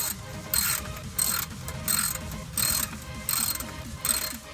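Hand ratchet wrench being worked in quick back-and-forth strokes, about one burst of clicking every 0.7 seconds, as bolts are run out. The sound cuts off suddenly at the end.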